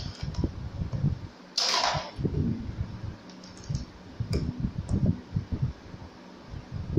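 Handling sounds of unboxing a plastic hot glue gun: repeated light knocks and taps of the gun and its packaging against a wooden board, with a short rustle of plastic packaging about a second and a half in and a few small clicks later on.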